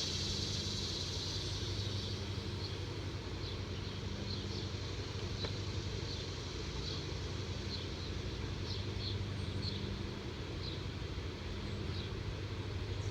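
A steady low motor hum, like an engine idling, with faint short high chirps scattered through it.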